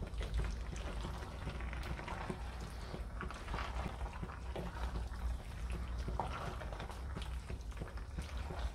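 Wooden spoon stirring pasta through thick tomato sauce in a stainless steel pan: soft, irregular wet squelching and scraping with small clicks, over a low steady hum.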